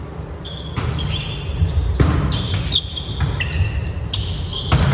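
Indoor volleyball play: sneakers squeaking on a gym floor in many short high-pitched chirps, with a sharp smack of the ball about two seconds in, echoing in the hall.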